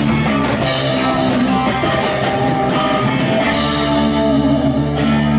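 Live rock band playing, with an electric guitar strummed over the band, loud and continuous.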